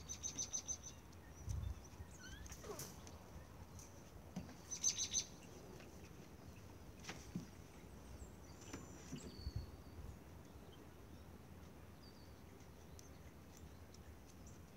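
Quiet outdoor ambience with birds chirping: two short, rapid, high-pitched trills, one at the start and one about five seconds in, and a few fainter chirps between.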